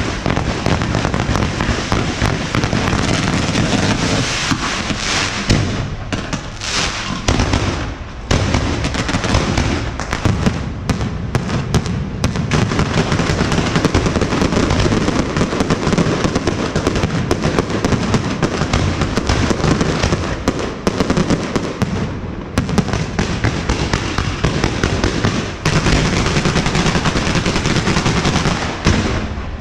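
Fireworks and firecrackers going off in a dense, continuous barrage of rapid bangs and crackles, thinning briefly about six to eight seconds in and again a little past twenty seconds.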